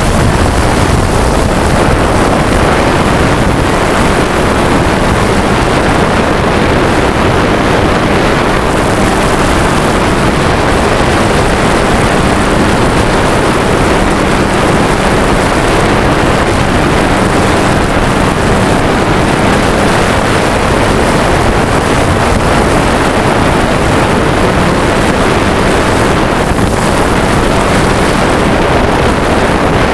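Quadcopter drone's motors and propellers whirring steadily and loudly, heard from the drone's own onboard camera, with wind noise on the microphone.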